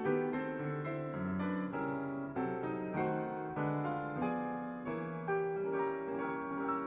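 Classical piano music, with chords and melody notes struck a few times a second.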